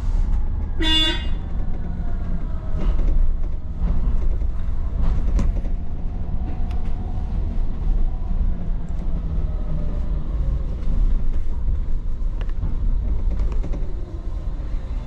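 A vehicle horn gives one short toot about a second in, over the steady low rumble of a double-decker bus riding through traffic, heard from inside the bus.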